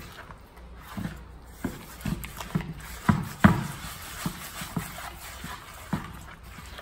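A hand working creamed butter, sugar and egg against a wooden bowl: soft, irregular thuds about one or two a second, the loudest about three seconds in.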